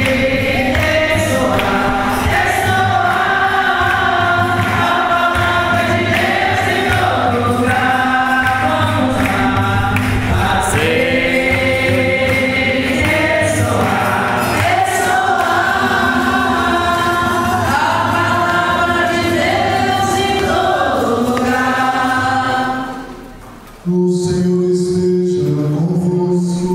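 Congregation singing together at Mass, many voices over steady low accompaniment. Near the end the singing fades, then cuts abruptly to another passage with long held notes.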